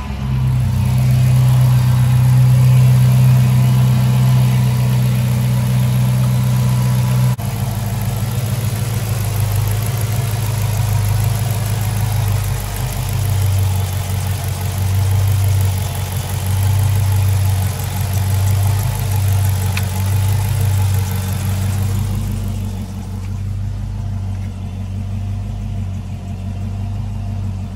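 2008 Dodge Charger R/T's 5.7-litre Hemi V8 idling steadily with the hood open, a deep even hum. About seven seconds in the hum shifts abruptly a little lower.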